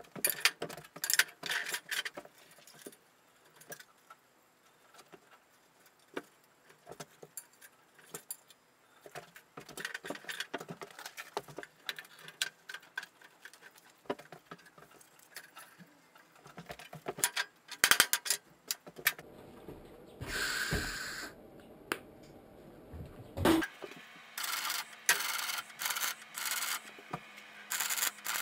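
Steel profile tube and magnetic welding squares being handled and knocked into place: scattered metallic clinks and knocks. About two-thirds in comes one longer crackle of MIG welding, and near the end a quick run of short MIG tack welds, each under a second.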